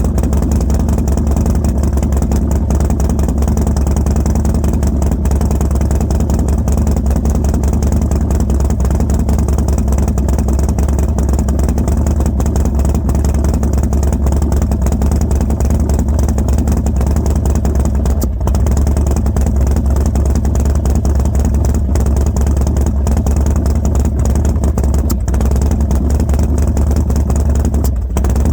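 Harley-Davidson Dyna Street Bob V-twin with Fueling 543 Reaper cams and a Bassani Road Rage 2 two-into-one exhaust, idling roughly and unevenly. It dips briefly twice, once about two-thirds through and again near the end. The owner says the cold-start idle backfires and wants to die since the cam install and tune.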